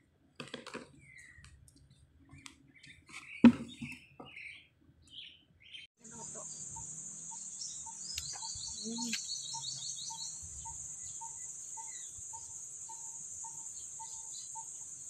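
Small birds chirping in short calls, with one sharp knock about three and a half seconds in. From about six seconds a steady, high-pitched insect drone sets in, with a bird's fast descending trill over it and a faint regular peeping.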